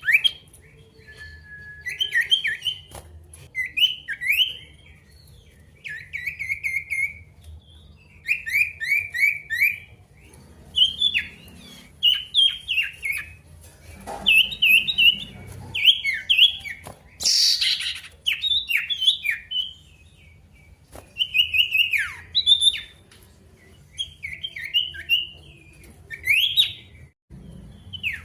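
Male sirtu songbird singing busily in a challenge song aimed at a rival: quick phrases of short, sharp whistled notes that each sweep downward, repeated in bursts of a second or two with short pauses between.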